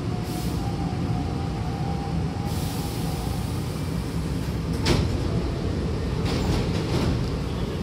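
Interior of a Hankyu train car drawing to a stop at a subway platform: a steady low rumble with a faint whine for the first two seconds or so, then a short hiss of air. About five seconds in, the car's sliding doors open with a sharp knock, followed by a few lighter clatters.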